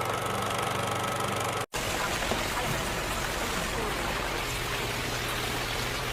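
Steady machine hum, cut off by a sudden break a little under two seconds in; after it, the even sizzling hiss of chicken deep-frying in hot oil over a low hum.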